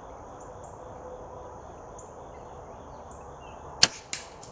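A compound bow shot: a single loud, sharp snap of the string and limbs about 3.8 s in, followed a third of a second later by a second, quieter crack that dies away. Insects chirp and buzz steadily in the background.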